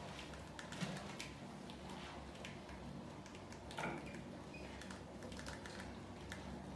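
Rats moving about beside a plastic bucket trap, making faint irregular scratching and clicking sounds, with a couple of slightly louder clicks about a second in and near the middle.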